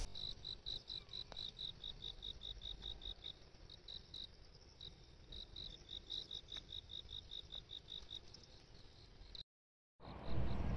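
An insect chirping in a steady series of short, high chirps, about five a second, with a few short pauses. Near the end the sound cuts out briefly, and a louder steady outdoor noise takes over.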